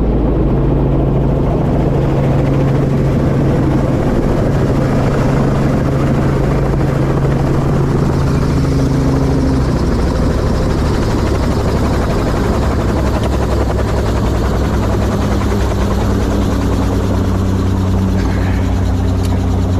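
Helicopter in flight heard from on board: a loud, steady drone of rotor and engine. The low hum changes pitch about halfway through.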